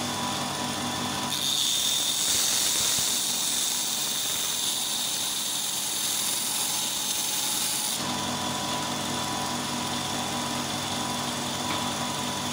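Compact belt grinder's electric motor (370 W, 3000 rpm) running steadily with a hum. From about a second in until about eight seconds, a steel chisel is ground against the 50 mm abrasive belt, throwing sparks, and a loud grinding hiss rides over the motor. After that the motor runs on alone.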